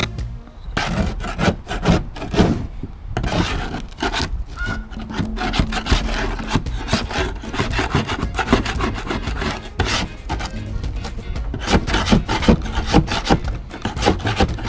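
Hand scraper scraping old glue and wood off a jon boat's deck in quick, irregular strokes.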